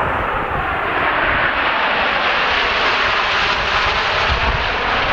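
A formation of Snowbirds CT-114 Tutor jets flying past, their jet engines a loud, steady rushing roar.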